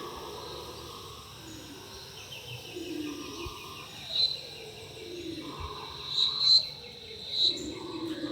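Howler monkeys howling in repeated drawn-out swells, under a bird's sharp high chirps, which come four times and are the loudest sounds, and a pulsing insect trill in the middle.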